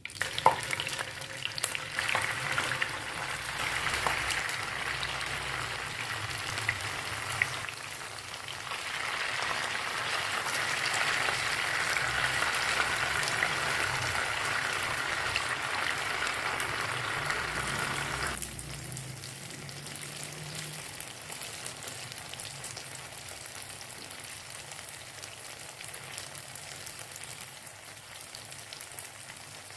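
Food frying in hot oil in a pan. A sizzle starts suddenly at the outset and swells again from about nine seconds, then drops abruptly to a quieter, steady sizzle about eighteen seconds in.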